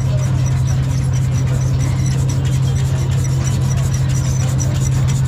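A machine running steadily: a strong low hum with a fast, even beat and a short high squeak repeating several times a second.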